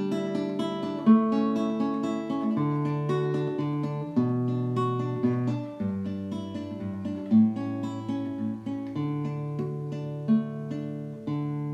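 Background music: an acoustic guitar playing plucked chords, ending on a chord left to ring near the end.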